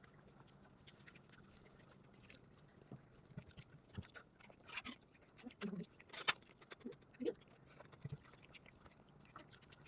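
A six-month-old baby eating sweet potato by itself: faint, scattered wet mouth smacks and chewing noises with a few short grunts, and one sharper click a little after six seconds in.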